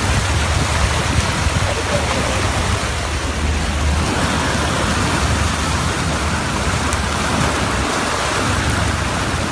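Water rushing and churning in the wake of a moving boat, a steady hiss with a low rumble underneath.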